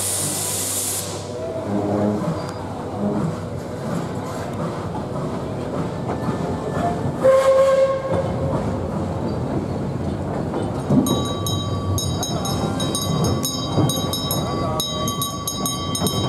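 Narrow-gauge steam train standing at a platform: a short burst of steam hiss at the start, then a brief steam whistle toot about seven seconds in. From about eleven seconds the guard's hand bell rings rapidly, signalling departure.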